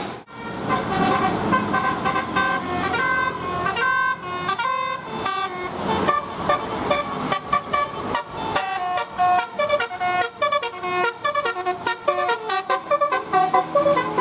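Bus telolet horn: a bus's set of multi-tone air horns playing a melody of stepped notes, the notes getting shorter and quicker in the second half.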